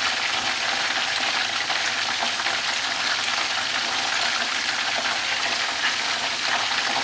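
Hot cooking oil in a wok giving a steady, even hiss, heated and ready for the garlic to go in.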